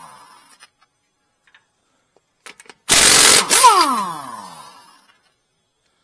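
DeWalt impact wrench loosening a wheel's lug nut. After a pause with a few light clicks, there is a short burst of hammering about three seconds in, then the motor's whine falls away as it spins down.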